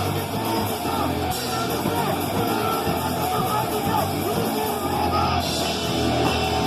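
Live rock band playing heavy, guitar-driven music, with singing.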